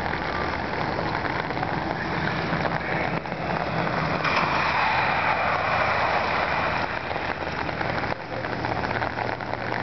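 Steady rain falling on a flooded street, with an SUV's tyres hissing through the standing water as it drives past, loudest in the middle.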